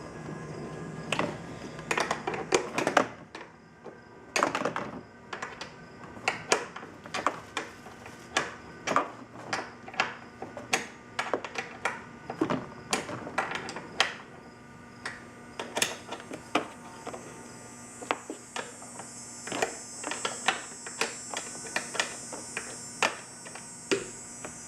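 Hand ratchet clicking in short strokes as the new side mirror's mounting nuts are tightened down: a run of sharp clicks, irregular at about one or two a second, over a faint steady hum.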